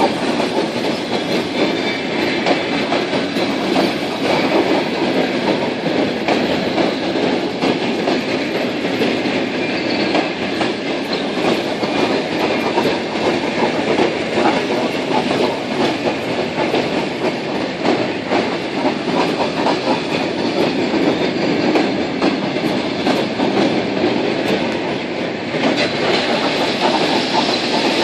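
Passenger-type railway cars of an ER2R electric train rolling by on steel wheels under tow, a continuous clatter of wheels over rail joints and points, with no break in the knocking.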